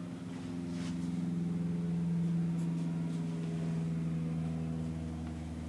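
A steady machine hum, with a faint light click about a second in and a few fainter ones near the middle.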